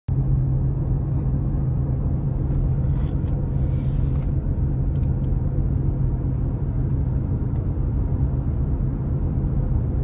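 Car driving at a steady speed on a paved road, heard from inside: a steady low rumble of tyres and engine.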